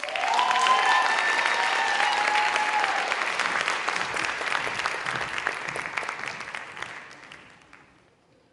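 Audience applauding with a few cheers, loud at once and fading away after about seven seconds.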